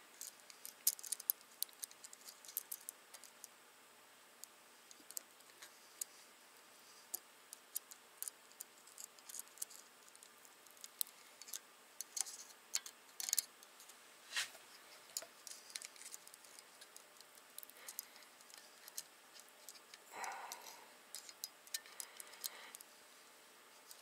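Irregular small metallic clicks and ticks from a valve spring compressor and valve keepers being worked into a spring retainer on a VR6 cylinder head, with one brief duller noise about twenty seconds in.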